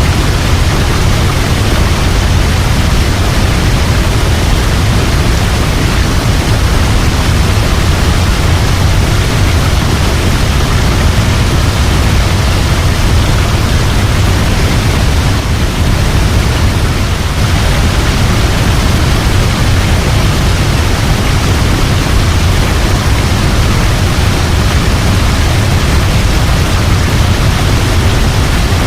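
Waterfall: a steady, loud rush of falling water, deepest and strongest in the low rumble.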